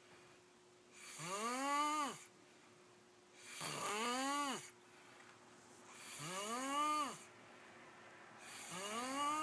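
A boy snoring in a slow, even rhythm: four drawn-out, pitched snores about two and a half seconds apart. Each snore rises and then falls in pitch and carries a breathy hiss.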